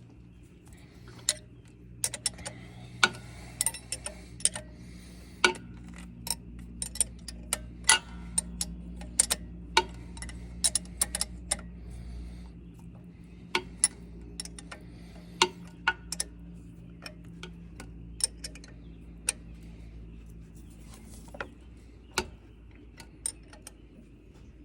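Hand tools working on metal: many sharp clicks and clinks at irregular intervals, over a low steady hum.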